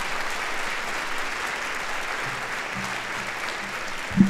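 Large seated audience applauding, the clapping slowly thinning. Low steady tones come in past the halfway point, and a single thump sounds near the end.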